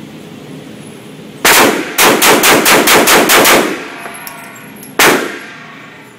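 Semi-automatic handgun firing inside an indoor range: one shot, then a rapid string of about nine shots at roughly six a second, then a single last shot, each with an echoing tail off the range walls.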